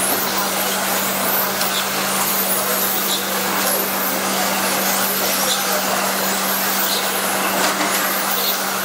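Radio-controlled electric touring cars racing round the track, their motors and tyres making a steady, high-pitched whirring hiss with faint rising and falling whines as they pass.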